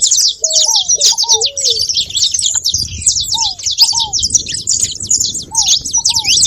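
A flock of saffron finches chirping nonstop in a dense, high-pitched chorus, with ground doves cutting in with short low coos, mostly in pairs, several times.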